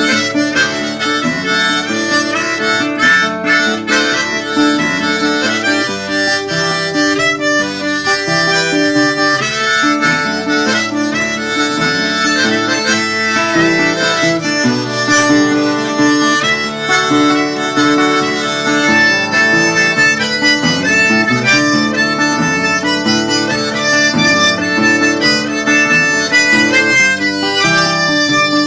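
Diatonic harmonica playing an instrumental break of a Cajun tune, several notes sounding at once in a style that imitates a Cajun accordion.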